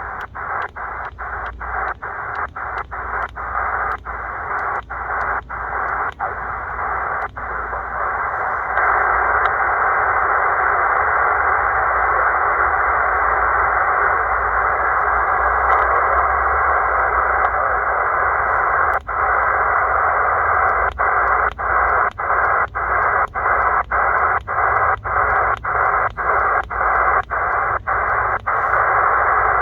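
Shortwave receiver hiss in single-sideband mode, with no signal on the frequency. The hiss is broken by short, evenly spaced dropouts, two or three a second, as the receiver is stepped across a quiet band. It runs as a steady hiss through the middle stretch, then the dropouts start again.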